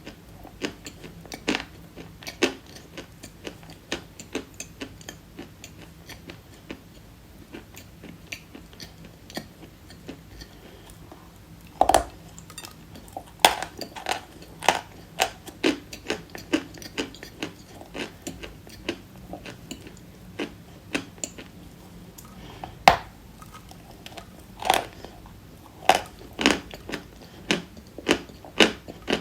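Close-up biting and chewing of dry white chalk: a run of crisp crunches and snaps at uneven intervals. A few sharper bites stand out about twelve seconds in and again near the end.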